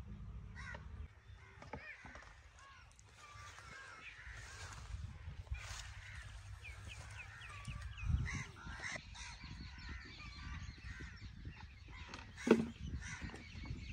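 Birds calling outdoors: many short calls, with a quick run of repeated calls in the middle, over a steady low hum. A single sharp knock, the loudest sound, comes about twelve seconds in.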